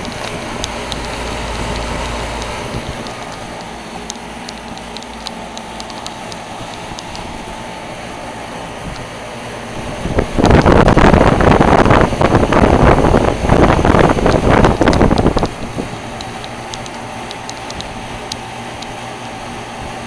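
Heil heat pump's outdoor unit running in cool mode: a steady hum from the compressor and the three-blade condenser fan, with a faint steady tone. About ten seconds in, a much louder rushing of air starts and lasts about five seconds, as the fan's discharge blows across the microphone held over the top grille.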